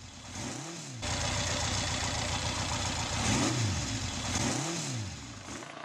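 MV Agusta 750S four-cylinder engine running and revved three times, each blip a quick rise and fall in pitch.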